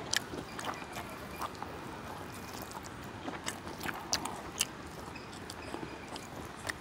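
Quiet eating sounds: faint chewing and a scattering of small clicks, with short gaps between them, as someone eats a meal.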